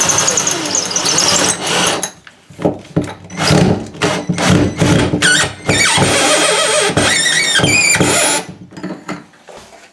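Cordless drill running in short bursts at the wall, its motor whining and changing speed, stopping and starting several times before falling quiet near the end.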